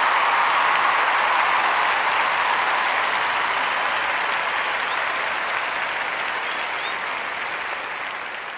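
Crowd applauding steadily, slowly fading toward the end.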